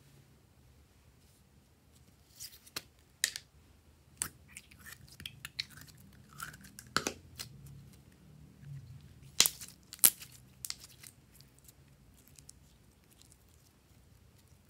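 Glossy slime being stretched and pressed by hand, giving a string of sharp clicks and small pops, with the two loudest close together about ten seconds in.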